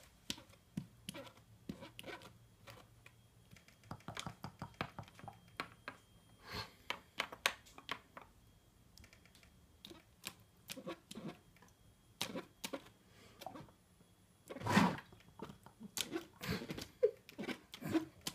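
A cat drinking and pawing at the water of a plastic pet water dispenser: irregular small taps, laps and splashes, several a second at times, with one louder bump about fifteen seconds in.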